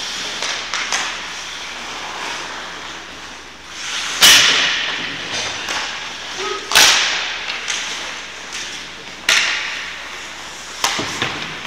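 Four sharp, echoing cracks spaced a couple of seconds apart over a steady hiss.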